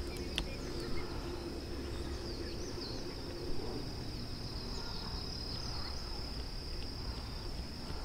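Outdoor ambience: a steady high-pitched insect trill with a few short bird chirps over a low rumble.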